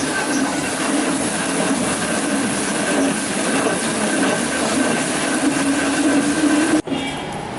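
Sawmill machinery running loud and steady, a dense mechanical noise with a high whine over it, as wood is cut into rocket sticks. Near the end it cuts off abruptly to a quieter clatter.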